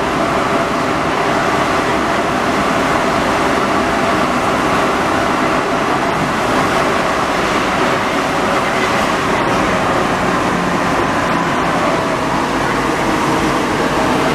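Santiago Metro NS93 rubber-tyred train running through a tunnel, heard from inside the car: a loud, steady rumble of running noise with faint whining tones.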